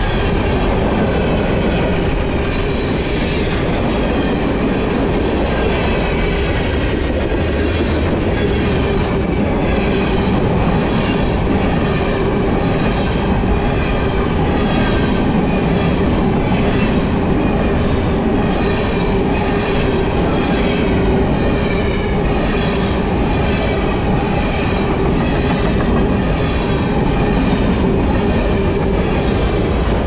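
Freight train cars rolling past at close range: a steady loud rumble of steel wheels on the rails, with repeated clickety-clack as the wheels cross rail joints.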